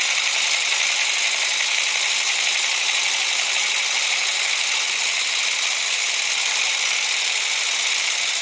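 PM Research No. 7 model steam engine running on steam from a copper boiler, a steady, even hiss.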